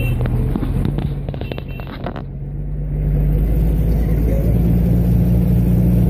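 Engine of a motor river ferry running steadily, speeding up about three seconds in with a rise in pitch and loudness. A few light knocks and clicks come before that.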